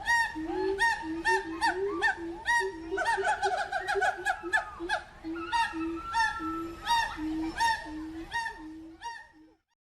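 Several birds giving loud honking calls over one another, in short repeated honks about two a second, cutting off suddenly near the end.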